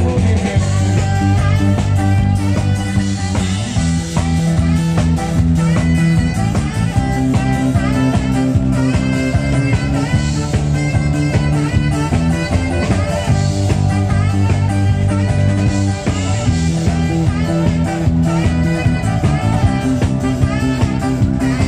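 Live band playing an amplified guitar-led instrumental passage over a steady, low bass line, with no vocals.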